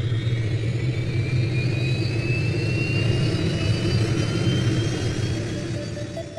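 A steady engine-like rumble with a high whine that slowly rises in pitch, fading away near the end.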